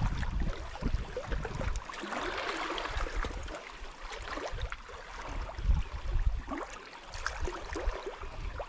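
Outdoor water-and-wind noise: uneven low rumbles of wind on the microphone over a hiss of water in the shallows, with scattered faint clicks.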